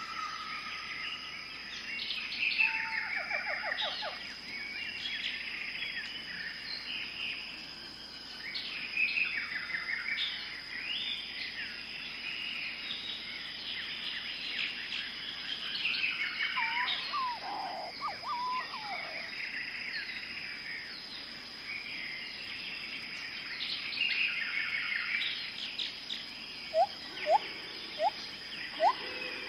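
Amazon rainforest birds calling and singing together, many chirps and trills overlapping, over a steady high-pitched tone. Near the end comes a run of loud, short rising whistles.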